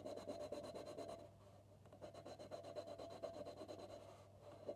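Woodless colored pencil scrubbing back and forth on paper under heavy pressure, a faint fast rubbing scratch of quick even strokes that eases off briefly about a second in.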